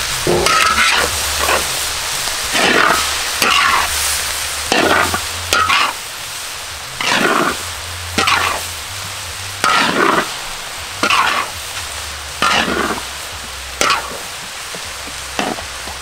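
Metal spatula scraping and tossing corn kernels and small dried shrimp in a large wok, about one stroke a second, over a steady sizzle of frying.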